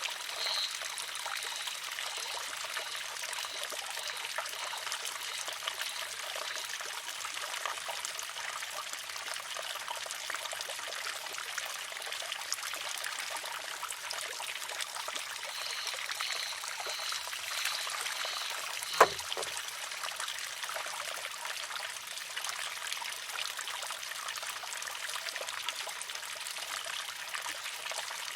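Water trickling steadily into a wooden shishi-odoshi (deer scarer). About 19 seconds in, the filled arm tips over and strikes its rock with one sharp clack.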